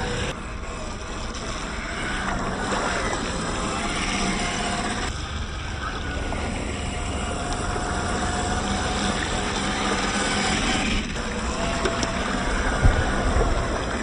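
1/10 scale Rochobby Mashigan RC crawler driving through a shallow puddle: the electric motor and drivetrain whine, changing pitch with the throttle, over water splashing and sloshing around the tyres. A short sharp knock near the end.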